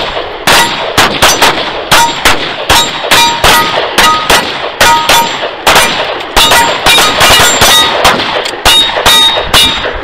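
Pistol fired in a long rapid string, about two to three shots a second, at steel plate targets. Many of the shots are followed by a short clear ring as a bullet hits the steel.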